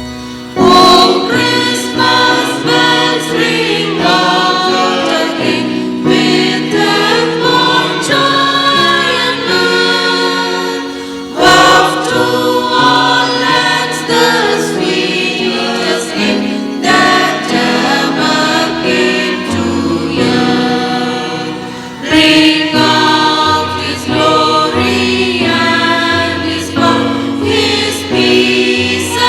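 Church choir singing a Christmas song with electronic keyboard accompaniment, in long phrases, each starting loudly: about a second in, near the middle, and about two-thirds of the way through.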